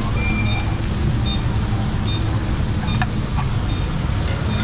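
Steady low rumble under the hiss of food sizzling on a hot cast-iron serving plate. Several short high beeps come and go, and there is a light metal clink about three seconds in.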